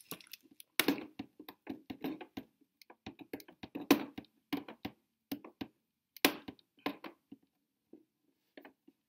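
Fingernails picking and scraping at the edge of a protective film on a plastic window set in an aluminium frame, making irregular small clicks and scratches, with a few sharper clicks as the nail catches and slips off the corner.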